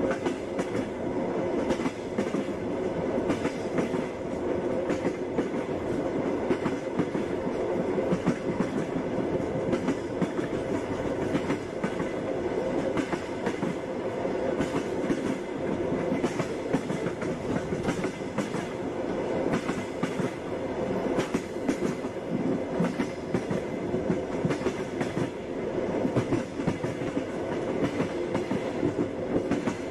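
Passenger train running along the track: a steady rumble with the irregular clatter and knocking of the carriage wheels on the rails.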